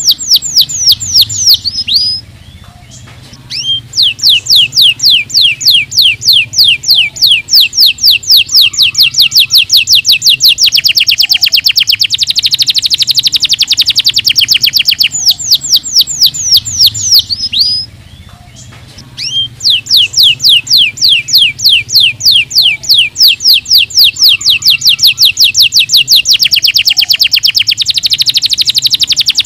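Domestic canary singing long, very fast rolling trills, each run a rapid string of identical high notes, with two brief pauses, about 2 seconds in and about 18 seconds in.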